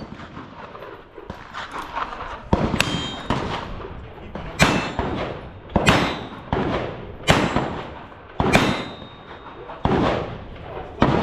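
A shot timer beeps at the start. Then comes a cowboy action shooting string: about seven loud gunshots, evenly paced about 1.3 seconds apart. Several are followed by the brief ring of hit steel targets.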